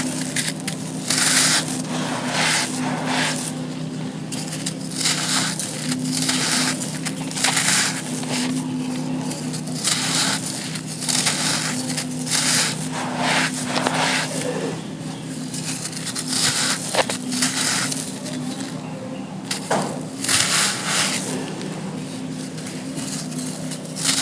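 Dry, gritty sand cones crushed and crumbling, with a crunch roughly every second or two and a steady low hum underneath.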